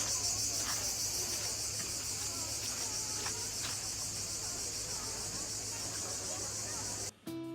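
Cicadas in a steady shrill chorus. The chorus cuts off abruptly near the end as music starts.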